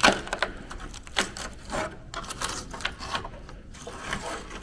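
Rusted steel floor pan of a Ford Capri being picked and scraped, giving a run of irregular clicks and scrapes as rust flakes crumble off: the floor is rotten through.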